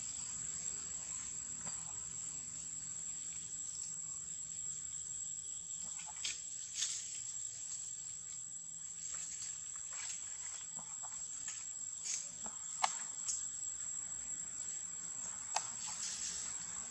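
Steady high-pitched drone of forest insects, a cricket or cicada chorus, with a few short sharp clicks and crackles scattered through it.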